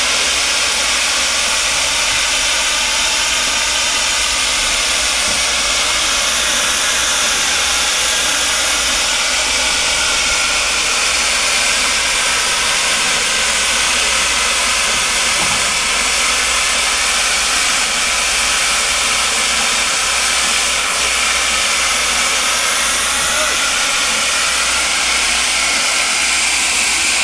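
Steam traction engine hissing steadily.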